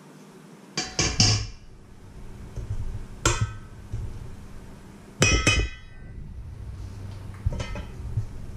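Stainless steel kitchen bowls, a wire-mesh sieve and a spoon knocking against each other: several ringing metal clanks, two close together about a second in, one near three seconds, two more past five seconds and a last one near the end.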